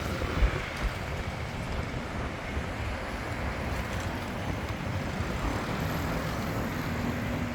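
City street ambience: steady traffic noise with a low rumble, and a brief thump about half a second in.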